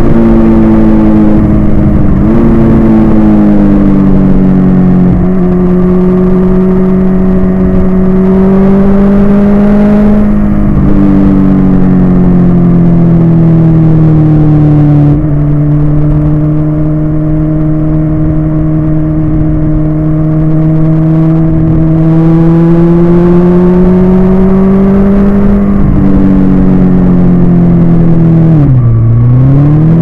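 Suzuki GSX-R1000 inline-four sportbike engine running under way at cruising speed. Its note climbs slowly and drops in steps at several gear changes, with a brief dip and pick-up near the end.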